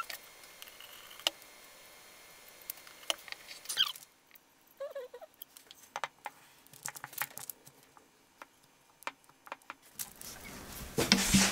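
Scattered light clicks and taps of box-jointed wooden clamp parts being handled and fitted together for gluing, with a louder rustling clatter near the end.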